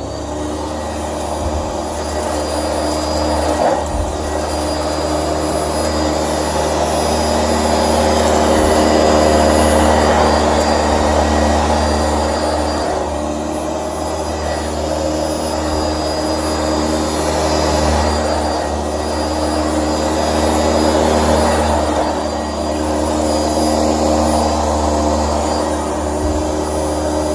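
Sanitaire SC679J commercial upright vacuum cleaner running steadily: a motor hum with a thin high whine, its loudness swelling and easing gently as it is worked under a bed.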